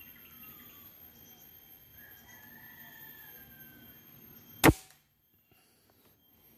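A single sharp shot from a Semar Neo PCP air rifle, about two-thirds of the way in. Before it, faint bird calls over a steady low background.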